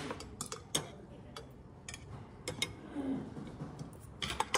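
Irregular light clicks and clinks of spoons and chopsticks against dishes during a meal, with a quick cluster near the end.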